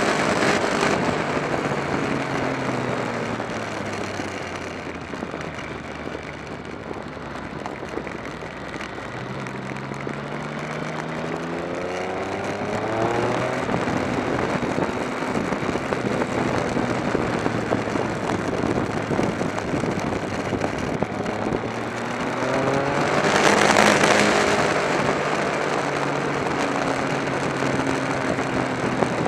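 Motorcycle engine heard from the riding bike with steady wind rush. It eases off early on, then rises in pitch under acceleration about ten seconds in and again, loudest, about three-quarters of the way through.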